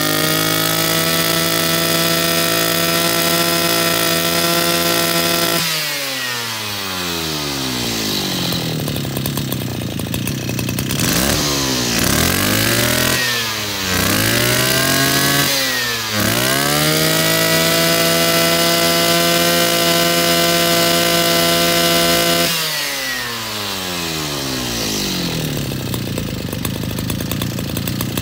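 Mitsubishi T200 two-stroke brushcutter engine, fitted with a 430 carburetor, revved by hand on a test run. It runs at full throttle for about five seconds and drops to idle. It is blipped twice, then held at full throttle again for about six seconds before falling back to a steady idle near the end.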